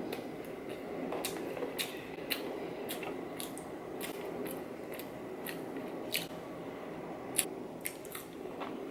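Close-miked chewing of a burger, with sharp wet mouth clicks and smacks about twice a second.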